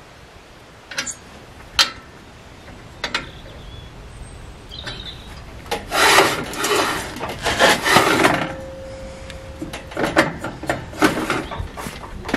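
Steel parts of a homemade bandsaw mill rubbing and scraping as the blade guide and blade wheel are worked by hand. A few sharp metal clicks come first, then two longer scrapes about six and ten seconds in, with a faint brief squeal between them.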